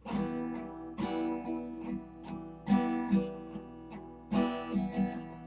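Acoustic guitar strummed in a slow instrumental intro: several chords struck and left to ring.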